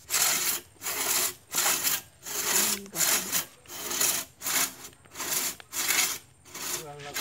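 Two-man crosscut hand saw cutting through a felled tree trunk, drawn back and forth in even rasping strokes, about two a second. The strokes fade out near the end as the sawing stops.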